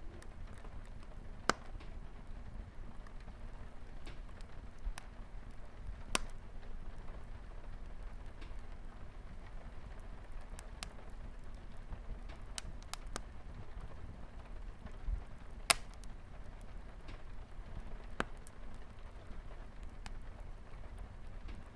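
Wood fire crackling with scattered sharp pops, the loudest about a second and a half in and near 16 seconds, over a steady hiss of light rain on a window.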